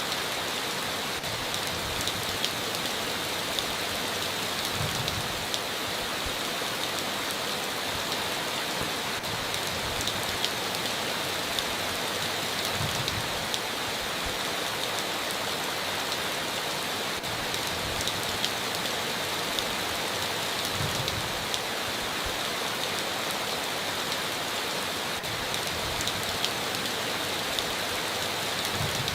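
Steady heavy rain falling on a tin roof, an even hiss with many sharp individual drop ticks, and a faint low thud about every eight seconds.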